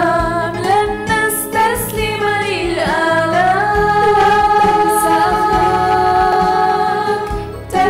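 A woman singing an Arabic children's cartoon theme song over backing music, holding one long note through the middle of the phrase.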